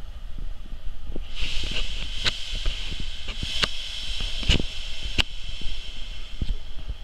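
Steam hissing from a small steam tank locomotive, venting in jets low at the front, rising about a second in and easing off about two seconds before the end, with several sharp knocks through it.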